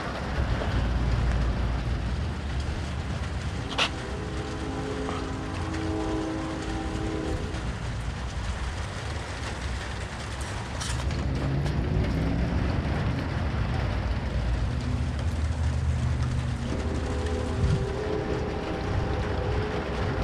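Steady rain with a continuous low rumble. Twice, for about three to four seconds each time, a horn sounds several steady notes together, typical of a distant train horn.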